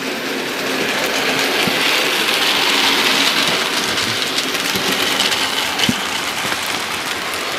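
OO gauge model trains running past on the layout: a steady whirring hiss of motors and wheels on the rails, with faint small ticks. It grows loudest about three seconds in as a train passes close by, then eases off.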